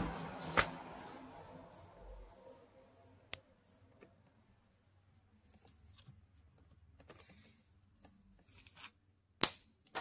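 A few sharp clicks and taps, scattered and spaced seconds apart, the loudest about half a second in, about three seconds in and near the end, with a rushing noise that fades out over the first two seconds.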